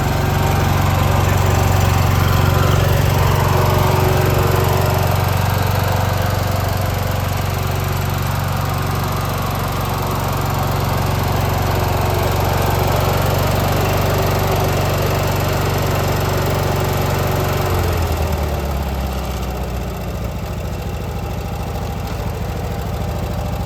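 Briggs & Stratton 16.5 hp twin-cylinder riding-mower engine running steadily, then dropping to a lower idle about 18 seconds in.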